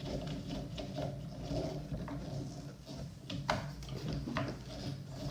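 Small screws being driven by hand into the plastic chassis of a Traxxas Slayer Pro 3.3 RC truck, with scattered clicks of the driver and plastic parts, a few sharp ones near the middle and end, over a steady low hum.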